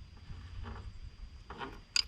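Light handling noise of a metal cable crimper and wrench, ending in one sharp metallic click, over a low rumble.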